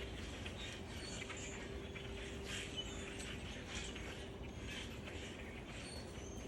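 Small birds chirping with short, high squeaks and twitters scattered throughout, over a faint steady hum.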